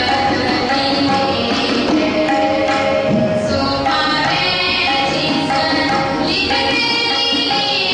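Gurbani kirtan in Raag Kanra: young voices singing over sustained harmonium chords, with tabla keeping the rhythm. The singing grows stronger and higher in the last couple of seconds.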